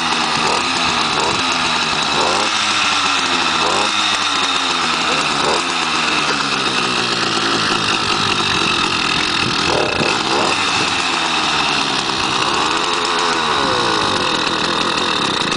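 Stock two-stroke motorized-bicycle engine with its stock muffler, running steadily and revved up and down repeatedly on the throttle, so its pitch rises and falls several times.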